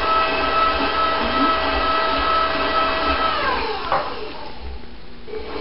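Electric stand mixer beating eggs and sugar at a steady speed, then switched off about three and a half seconds in, its whine falling in pitch as the motor spins down.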